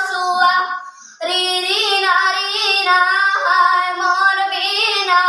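A young girl singing a Chhattisgarhi Sua folk song solo, without accompaniment; her voice drops out briefly about a second in, then carries on.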